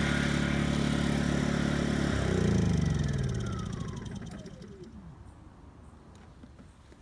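Honda EU2000i inverter generator running steadily at full speed (eco mode off), then switched off about two seconds in. The engine swells briefly and then winds down with a falling whine over about three seconds until it stops.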